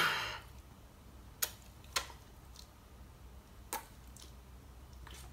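A quiet room with three short, sharp clicks, about 1.5, 2 and 3.7 seconds in. At the very start a loud sound fades out over about half a second.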